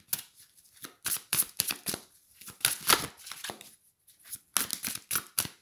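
A deck of oracle cards being hand-shuffled: papery slaps and rustles of the cards in several short runs with brief pauses between them.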